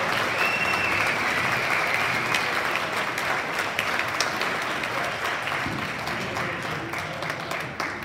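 Audience applauding, a dense patter of hand claps that slowly dies away toward the end.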